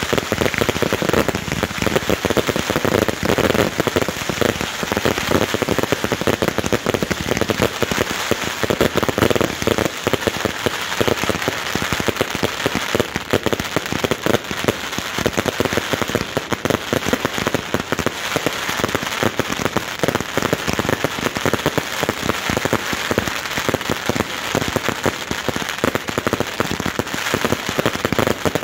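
Firework cakes going off in a dense, continuous crackle of countless small pops, like heavy rain.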